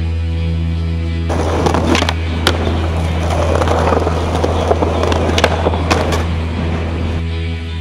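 Skateboard rolling over rough street pavement, starting about a second in, with several sharp clacks from the board. Background music with a steady low bass note plays underneath.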